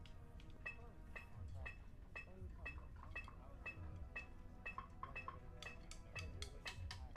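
Faint electronic metronome ticking steadily at about two beeps a second, played through a small speaker for a snare drumline's warm-up. A few sharp drumstick clicks come in alongside the beat near the end.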